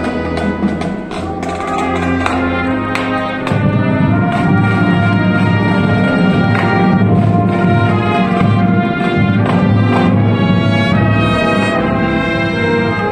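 Marching band brass section playing sustained chords, with a few sharp percussion hits in the first three seconds; the low brass comes in fuller about three and a half seconds in.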